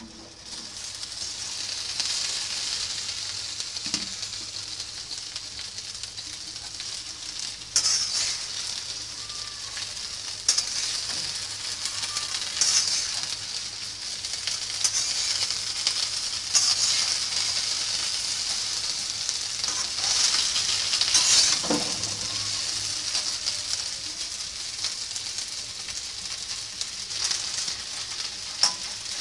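Chopped okra frying in hot oil in a karahi: a steady sizzle that swells over the first two seconds as the okra goes in, with now and then a short scrape of the spatula stirring it.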